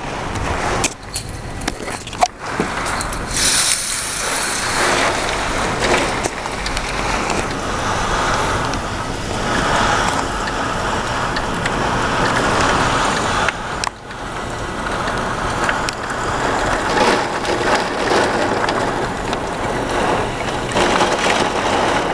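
Heavy rain and gusting wind of a severe thunderstorm beating on the house, a steady rushing noise that swells and eases, with a few sharp clicks near the start.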